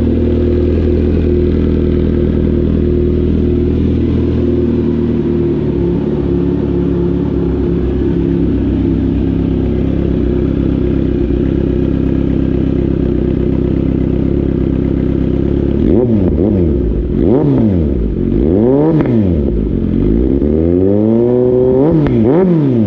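Kawasaki Z900 SE inline-four breathing through an aftermarket Austin Racing exhaust, idling steadily, then blipped through a series of quick revs that rise and fall about two-thirds of the way in.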